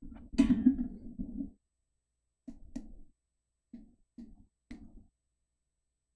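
Handling noise from a Blue Yeti USB microphone as it is grabbed and moved: muffled rubbing and bumping, first a longer stretch, then four or five short knocks, the last about five seconds in.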